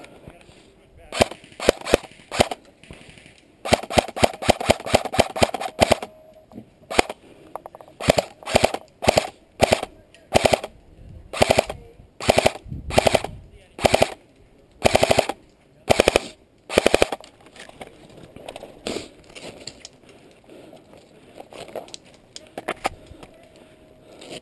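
Airsoft electric rifles firing on full auto in bursts: a long burst of about two seconds, then a string of short bursts about a second apart, thinning to a few scattered shots near the end.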